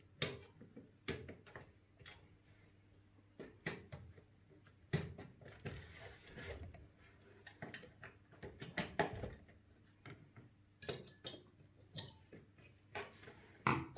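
Scattered small clicks and knocks as the four push-pin fasteners of an air CPU cooler are twisted counterclockwise to release it from the motherboard, at an irregular pace.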